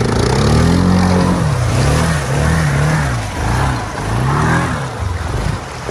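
Off-road vehicle engine revving up and down about five times, the way a vehicle stuck in mud is gunned to try to drive out; the machine is high-centred.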